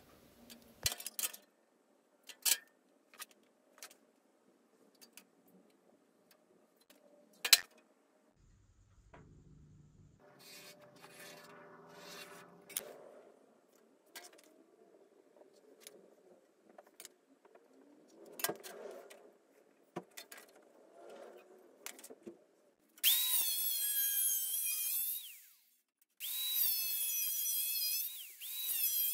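Light taps and clicks of measuring and marking tools on a steel bench, then an angle grinder spins up and cuts an aluminium sheet blank in two passes with a short pause between, its whine dipping and recovering repeatedly as the disc bites.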